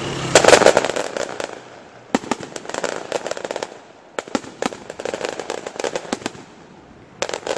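Fireworks going off: a loud cluster of bangs about half a second in, then further runs of rapid cracks and crackles with short lulls between them.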